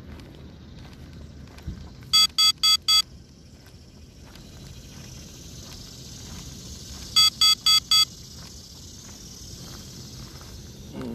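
Low-battery warning for an SG906 Pro drone: a group of four quick, loud beeps, repeated about five seconds later, warning that the battery is running low.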